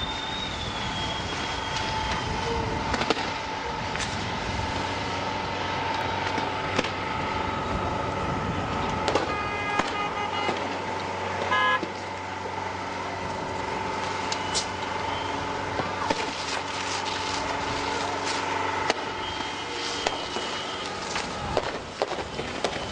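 Police water cannon spraying in a street clash: a steady rushing hiss with a long, steady horn-like tone held through most of it, short honks about ten and twelve seconds in, and scattered sharp bangs.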